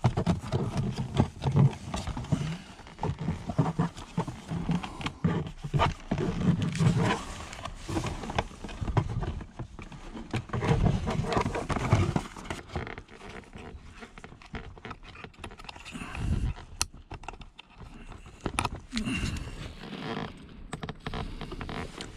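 Hard plastic under-dash footwell panel of a Mercedes-Benz SLK (R172) being worked loose and handled: irregular scraping, rubbing and clicking of plastic, with dull knocks and rumbles close to the microphone. The handling is busiest in the first half and thins out later.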